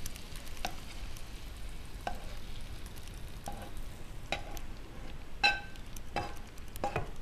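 Kung pao chicken stir-fry being scooped out of the hot pot: a metal utensil scrapes and clinks against the pot about a dozen times at irregular intervals, the loudest clink about five and a half seconds in, over a faint sizzle.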